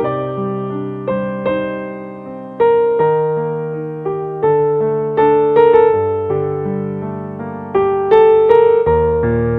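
Slow, soft keyboard music: piano-like notes struck singly and in chords, each fading before the next enters about every half second to second.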